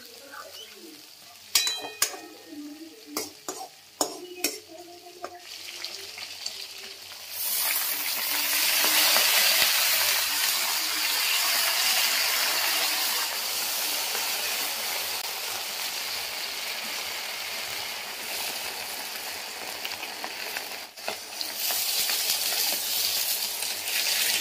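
A metal ladle clinks and scrapes in a steel wok over the first few seconds. From about seven seconds in comes loud, steady sizzling as mustard greens fry and steam in the hot wok, stirred with a metal spatula. The sizzling dips briefly near the end.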